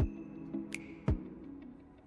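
Background music: sustained held notes with sharp percussion hits at uneven intervals.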